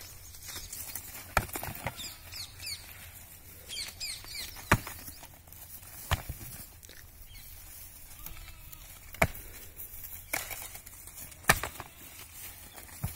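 Rams butting heads in a fight: about six sharp cracks of horn and skull colliding, at irregular intervals of one to three seconds.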